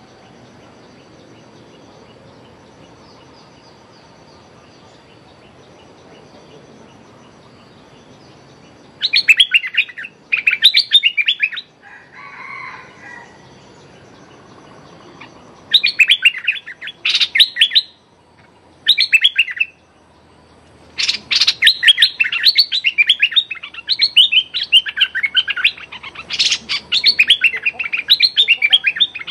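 Bulbul giving loud, rapid chattering calls in short bursts starting about nine seconds in, running almost without pause over the last eight seconds.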